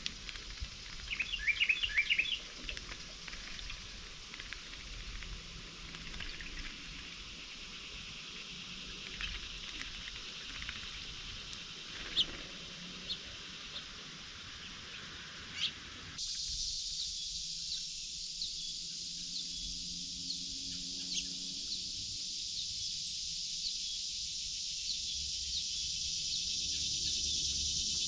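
Songbird chirping in a quick flurry of short notes about two seconds in, over faint outdoor background. About halfway through the sound changes abruptly to a steady high insect chorus with rapid ticking calls.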